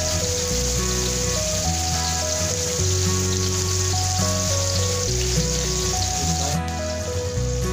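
Pieces of vam (eel) fish sizzling steadily as they shallow-fry in oil over a low flame. Background music with a stepping melody and bass line plays over it.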